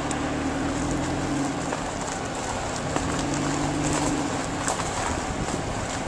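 A vehicle moving slowly along a dirt road: steady engine hum and tyre noise, with scattered small clicks and crackles.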